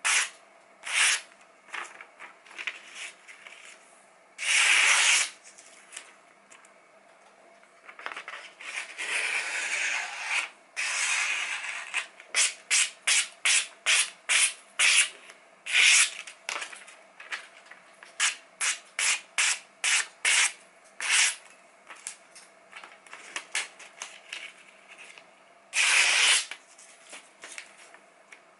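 Freshly sharpened kitchen knife slicing through glossy magazine paper to test the edge: a long run of short, quick cuts, several a second, with a few longer drawn cuts about five seconds in, around ten seconds in and near the end.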